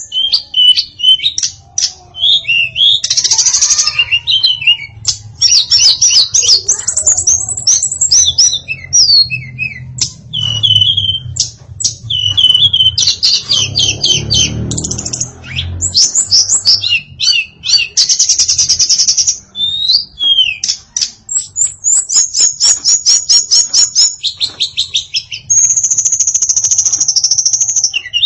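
Female tledekan songbird singing a long, varied song of rapid chirps, trills and whistled phrases with only short breaks, in the tight, fast-delivered style kicau keepers call 'nembak rapat'. A faint low rumble sits under the song for a few seconds in the middle.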